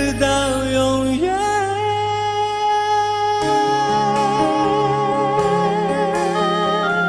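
A singer holds one long note with vibrato, reached by an upward slide about a second in. Accompaniment plays under it, with struck chords coming in about three and a half seconds in.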